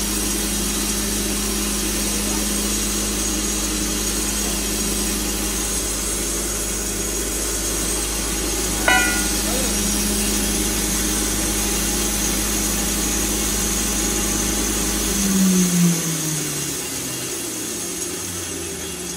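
Belt-driven corn grinder and its electric motor running with a steady hum, with one sharp knock about nine seconds in. Near the end the hum stops and falls in pitch as the machine spins down.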